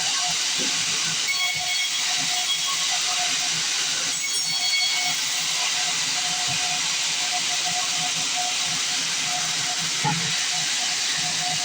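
Band sawmill blade cutting through a log, giving a steady hiss with a faint, broken tone underneath.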